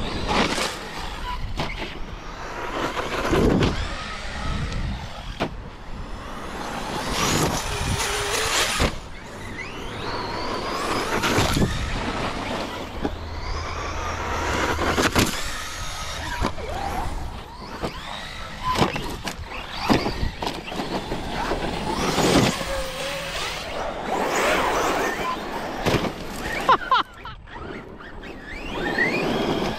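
Brushless electric RC truck being driven hard: its motor whine rises and falls again and again as it speeds up and backs off, with surges of tyre and gravel noise.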